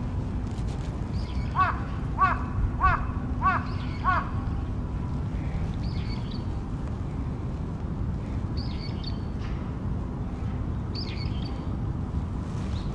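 A crow cawing five times in quick succession, about one caw every two-thirds of a second, a couple of seconds in; the recordist takes this calling for a crow's earthquake-warning call. Thin, higher calls of another bird come now and then over a steady low rumble.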